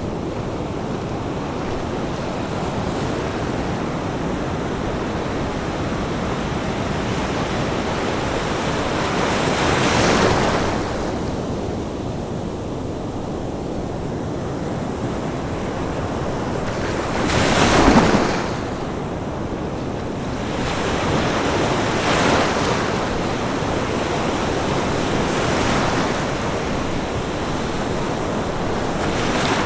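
Ocean waves breaking on a beach: a steady wash of surf with a swell every few seconds, the biggest wave crashing about two-thirds of the way through.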